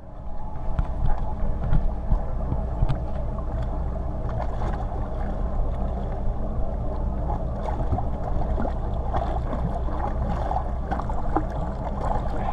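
Water washing and splashing around a camera held at the surface, over a steady low drone.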